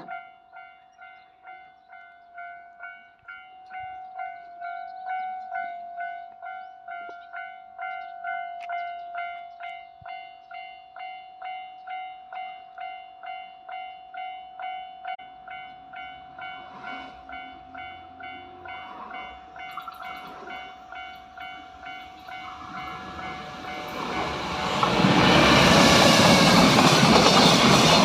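Japanese level-crossing warning bell ringing steadily at about two to three strikes a second. Near the end a freight train arrives and passes loudly, its rolling noise swamping the bell.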